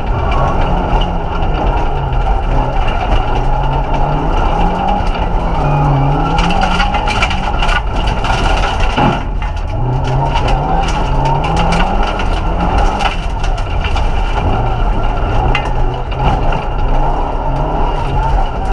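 Vauxhall Nova's 1.6 8-valve four-cylinder engine heard from inside the cabin, driven hard on a rally stage: the engine note repeatedly climbs in pitch and drops back through the gear changes. Many sharp clicks and knocks of stones and grit hit the underside throughout.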